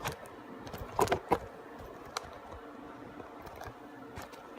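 Handling noise: a few small clicks and a quick cluster of three knocks about a second in, over a faint steady hum.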